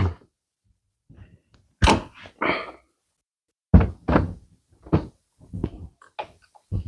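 Irregular knocks and clunks, about seven over several seconds, from parts of the convertible top's frame and hardware being worked loose and handled.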